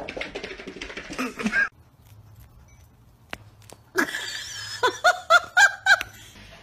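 A person laughing in a quick run of about five short, high-pitched bursts, a little past the middle.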